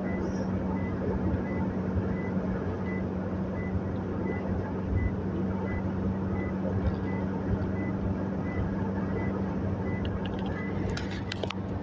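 Toyota Hilux's 2KD four-cylinder diesel running with the air conditioning on: a steady low hum, with a faint regular ticking about twice a second and a few clicks near the end.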